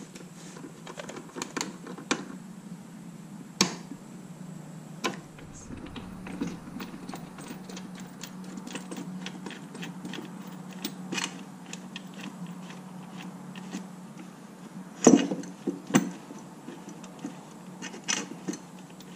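Scattered clicks, taps and light knocks of a part being handled and fitted into place under a watercraft hull, over a steady low hum. The loudest are two sharp knocks about 15 and 16 seconds in.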